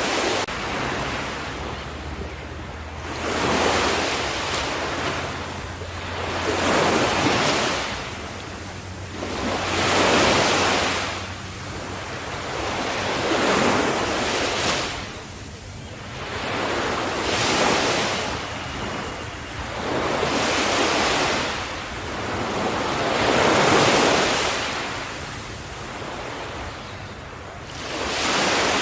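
Ocean waves breaking on the shore, each wave swelling into a hissing wash and then fading, about every three to four seconds.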